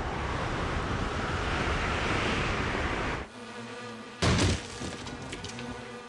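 Insect wings buzzing in flight, a cartoon sound effect, with a dense rushing hiss for about the first three seconds. After that it is quieter, broken by one short, loud burst about four seconds in.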